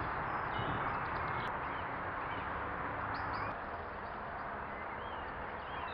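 Faint bird chirps now and then over a steady outdoor rush of noise, which drops a little about halfway through.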